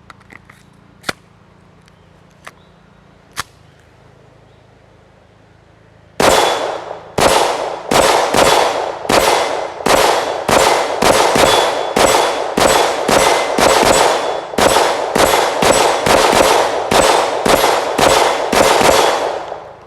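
Kel-Tec CP33 .22 LR pistol firing about two dozen quick shots, roughly two a second, at steel targets that clang and ring with the hits. The shooting starts about six seconds in, after a few lone sharp clicks.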